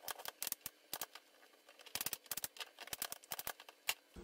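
Kitchen knife chopping zucchini into cubes on a cutting board: sharp taps, some single and some in quick runs of several strokes.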